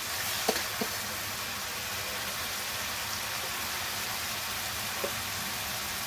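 Whole frozen tomatoes and ground-spice masala sizzling steadily in hot oil in a cooking pan. A few light clicks come about half a second in and once near the end.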